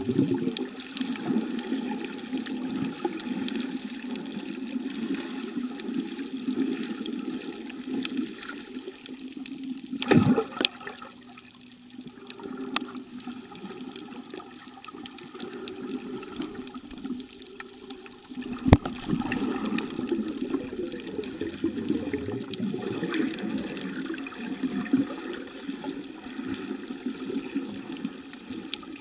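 Muffled underwater water noise heard through a submerged camera housing: an uneven low rushing and sloshing that eases off for a few seconds in the middle. Two sharp knocks stand out, about ten seconds in and again near nineteen seconds.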